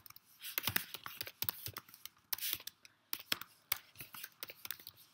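Typing on a computer keyboard: a string of quick, irregular key clicks as a short name is typed in.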